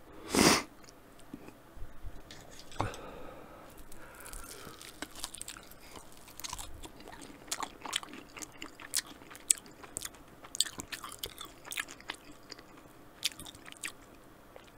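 A person chewing a chicken wing close to the microphone: irregular wet mouth clicks and smacks. A short, louder rush of noise comes about half a second in.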